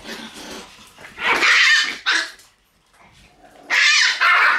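Shiba Inu puppies barking and growling in play, with two loud outbursts: one about a second in and another near the end.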